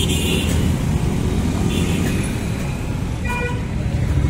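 Road traffic, with engines running steadily and a short vehicle horn toot about three seconds in.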